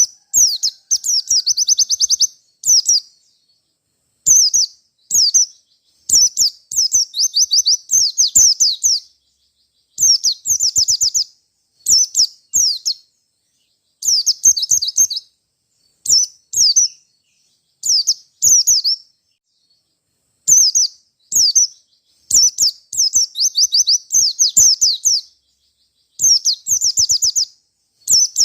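A white-eye (pleci) singing its fast fighting song. Loud, high-pitched phrases of rapid chirps and trills, each under a second to about a second and a half long, repeat with short pauses between them.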